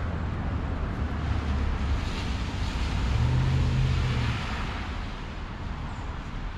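A car driving past on a wet, slushy street: tyre hiss swells and fades over a low engine rumble, loudest about three to four seconds in.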